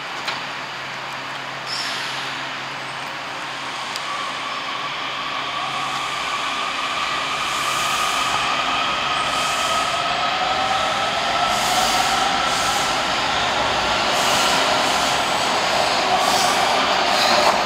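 Kawasaki 7000-series Washington Metro subway train pulling out of an underground station. Its rising whine climbs steadily in pitch as it picks up speed, over rail noise that grows louder.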